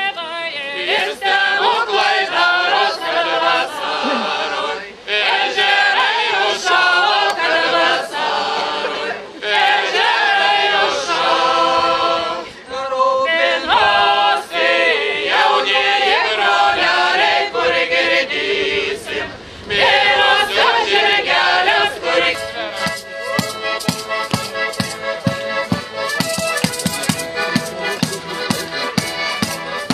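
A group of women singing a folk song with accordion accompaniment. About two-thirds of the way in the singing stops and the accordion plays on with a steady drum beat.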